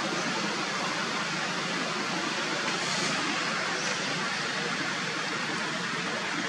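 Steady, even outdoor background hiss with no distinct events standing out.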